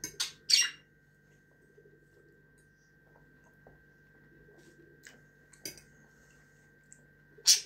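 A few short, sharp crunches and clicks of someone eating at a table. The loudest come about half a second in and near the end, over a faint steady high whine and a low hum.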